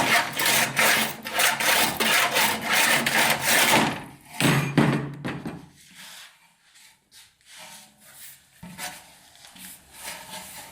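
Rhythmic scraping strokes of a hand tool, several a second, stopping about four seconds in; a few quieter knocks and scrapes follow.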